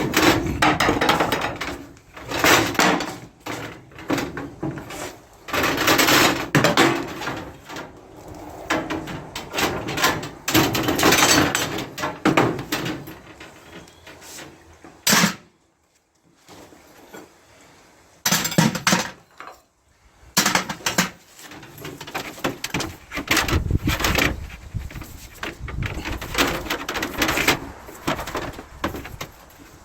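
Irregular scraping and clattering from scrap metal being handled, in bursts of a second or so, with a quiet spell about halfway through.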